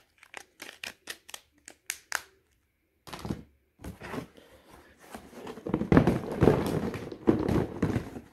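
A quick run of light plastic clicks and taps from a handset being handled. From about three seconds in comes crinkling and rustling of packaging with dull thuds as a cardboard shipping box is moved and dug into for the next phone.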